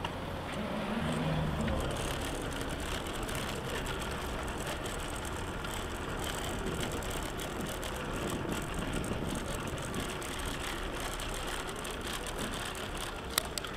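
Recumbent trike rolling over cobblestones: a steady rattling rumble of the tyres and frame on the stones. A single sharp click near the end.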